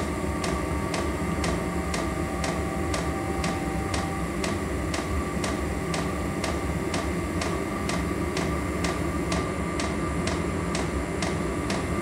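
Diesel heater's fuel dosing pump ticking evenly, about three clicks a second, over the steady run of its blower fan, during the heater's start-up.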